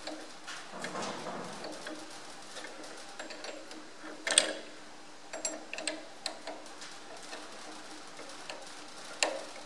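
Small irregular metal clicks and ticks of a spanner working a nut on a tractor's draft-link pivot, with a louder click about four seconds in and another near the end. A faint steady hum runs underneath.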